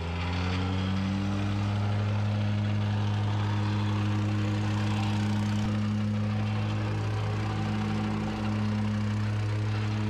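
Gas-engine vibratory plate compactor running steadily with a strong low hum as it is walked over the soil subgrade, compacting it.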